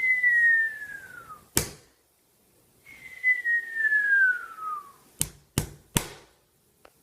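Two descending whistles, each a single tone sliding downward for about a second and a half, the classic falling-object sound effect. The first whistle ends in one sharp knock, the second in three quick knocks.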